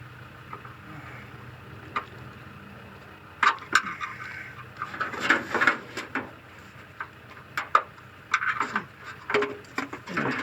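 Scattered sharp clicks and knocks of things being handled, starting about three seconds in, over a low steady hum.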